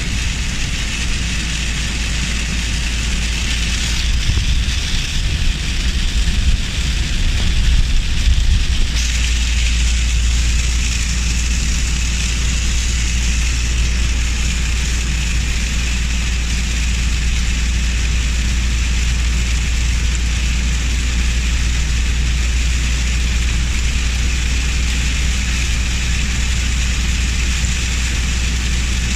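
Heavy rain pouring down in a constant hiss over a steady low rumble of vehicle road noise, with some uneven buffeting in the low end for a few seconds before the hiss settles and brightens.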